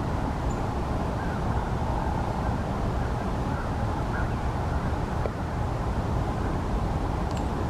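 Hooded merganser drakes giving a few faint croaking calls during their courtship display, over a steady low rumble.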